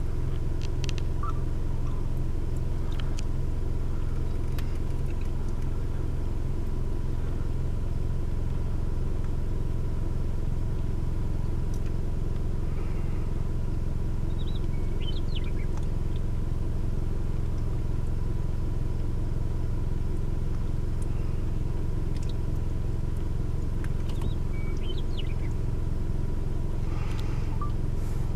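Car engine running with a steady low rumble, with no change in the engine's pitch.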